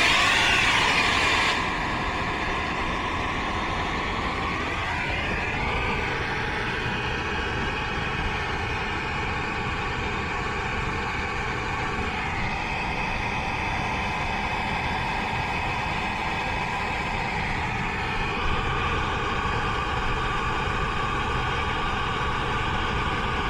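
Brazing torch flame running steadily with a hiss while the copper joints of a heat pump's reversing valve are brazed. It is a little louder for about the first second and a half, then holds level.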